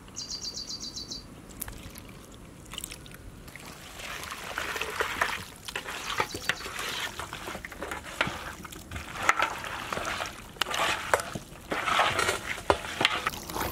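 Oil trickling into a metal pan of raw mutton, then a hand squishing and mixing the meat with yogurt, onions and chilli-ginger-garlic paste: wet squelching with many small clicks, louder from about four seconds in. A short rapid bird trill sounds near the start.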